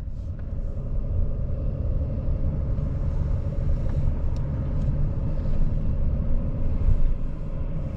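Steady low road and engine rumble heard inside a vehicle's cabin while driving slowly, with a faint steady hum.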